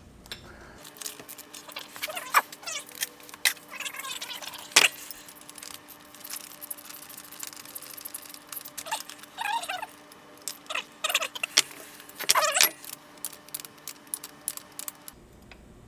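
Metal fork parts and tools clinking, tapping and scraping by hand in an irregular run of sharp clicks, with a couple of brief metallic rings about nine and twelve seconds in, under a faint steady hum.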